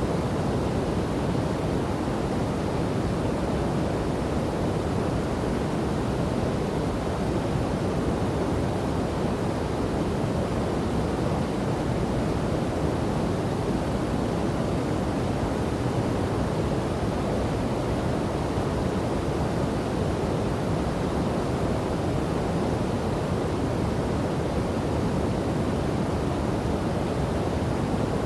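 Steady rush of a waterfall and flowing river water, an even, unbroken roar that is strongest in the low end.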